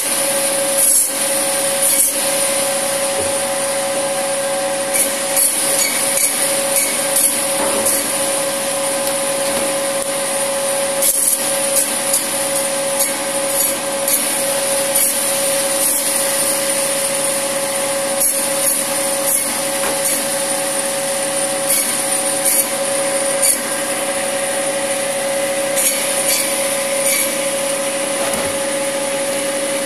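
Electric Minerva meat band saw running with a steady whine, its blade cutting through mutton on the bone, with short rasping scrapes every second or two as pieces are pushed through.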